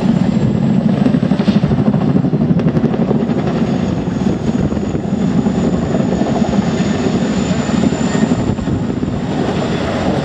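Chinook twin-rotor helicopter flying past close by: its rotor blades make a dense, rapid, steady chop, with a thin high turbine whine over it.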